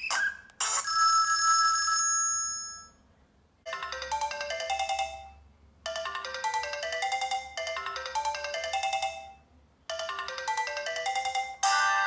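Sony Ericsson K200i built-in polyphonic ringtone previews playing one after another as the ringtone list is scrolled. A short chime rings out and fades over about two seconds. Then a melody plays in four repeated phrases with brief gaps, and a different, busier tune cuts in just before the end.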